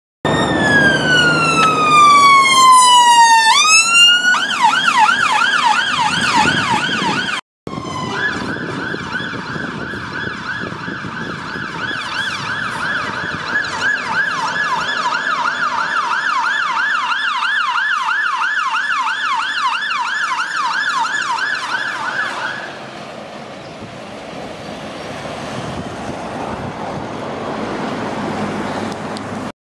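Emergency vehicle sirens: a long falling wail, then fast repeating up-and-down yelp sweeps that run steadily after a short break and stop about three-quarters of the way through, leaving traffic noise.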